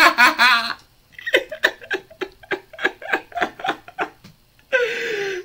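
A man laughing hard: a burst of quick laughter at the start, then a run of short breathy laughs, about three a second, and a drawn-out high voiced cry near the end.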